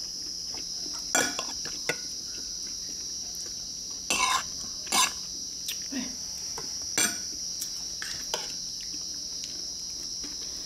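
Spoons and forks clinking and scraping against ceramic rice bowls while eating, about half a dozen sharp clinks, the loudest two near the middle. A steady high-pitched insect chirring runs underneath.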